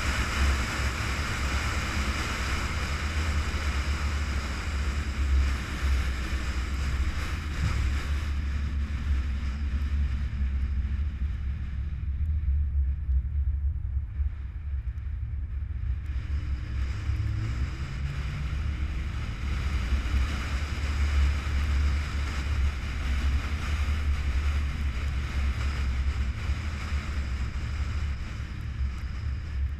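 Wind rushing over the microphone of a hood-mounted camera, over a deep steady rumble of a car's road and engine noise at speed. About ten seconds in the wind dies down as the car slows for a turn, then the engine note rises as it speeds up again and the wind noise builds back.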